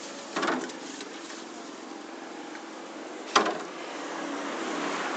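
A 19-litre plastic water gallon dropped onto a tiled floor: a short cluster of thuds as it lands and tumbles just after the start, then one sharp knock about three seconds later. The bottle survives without cracking.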